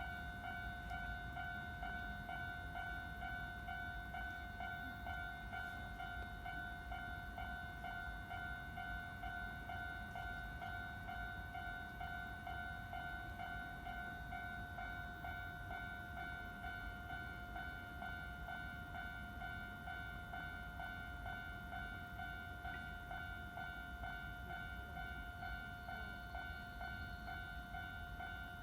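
Japanese railway level-crossing warning bell (fumikiri alarm) ringing without pause, an electronic ding repeating evenly, the signal that a train is approaching and the crossing is closed.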